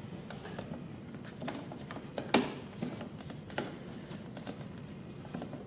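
Plastic door-trim parts being handled and fitted into place: scattered light clicks and taps, with one sharper knock about two seconds in.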